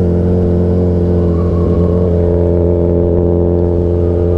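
Suzuki Hayabusa's inline-four engine through an aftermarket Brocks Performance exhaust, running under way at a steady engine speed with an unchanging pitch.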